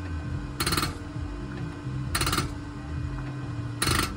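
CAT 3208 diesel fuel injector on a hand-lever pop tester, chattering as it sprays with each pump stroke: three short buzzing bursts about a second and a half apart. Background music and a steady low hum run underneath.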